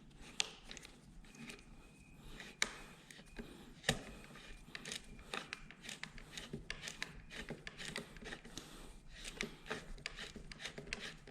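Faint clicks, taps and scrapes of hand tools working on motorcycle handguard mounting hardware at the handlebar. There are a few sharper knocks in the first four seconds and a quick run of small clicks in the second half.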